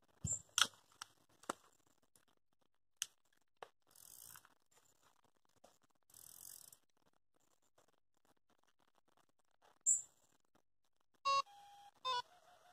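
Scattered sharp clicks and taps from a carp rod and reel being handled, with two short hisses a few seconds in. Near the end, an electronic carp bite alarm gives a short bleep and a steady tone as the rod is set on the rod pod.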